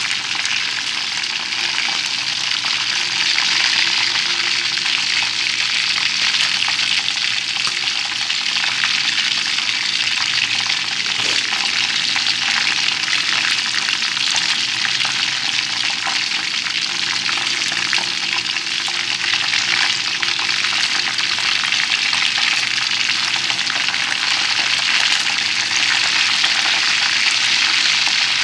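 Chicken wings shallow-frying in hot oil in a flat aluminium pan: a steady, dense sizzle.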